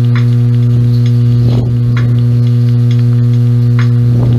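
Loud, steady electrical hum: a low drone with evenly spaced overtones that holds perfectly level throughout.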